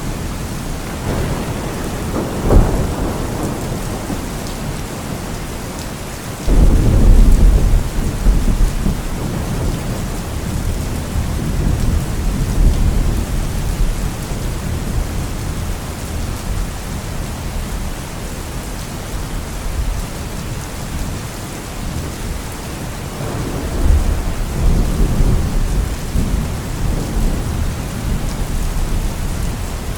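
Steady rain with thunder: a sharp crack about two seconds in, a loud rumble that breaks in suddenly a few seconds later, and another rolling rumble near the end.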